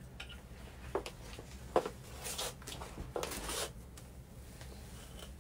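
Clothes hangers clicking against a wardrobe rail and garments rustling as clothes are taken down: two sharp clicks about a second apart, then two brief rustles.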